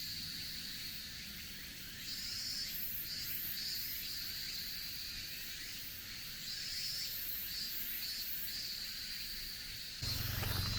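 Cicadas singing in chorus: a steady high buzz with louder pulses swelling and fading about once or twice a second. About ten seconds in, a low rumble comes in and footsteps begin.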